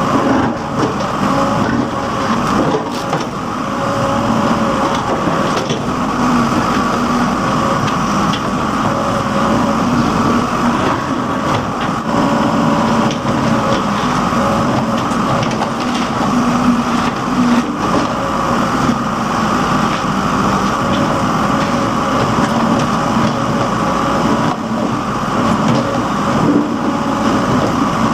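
Case 580 backhoe loader's diesel engine running steadily while the backhoe digs, its drone wavering slightly in pitch with small dips in level.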